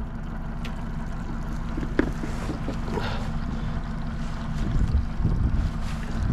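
Outboard motor running steadily at low speed, with water sloshing against the boat's hull and a few light clicks and knocks. The water noise grows rougher about five seconds in.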